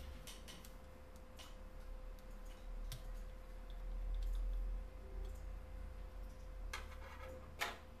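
Plastic snap clips of a Samsung Galaxy S3's midframe clicking as fingers pry it loose from the phone, scattered light clicks with a sharper snap near the end.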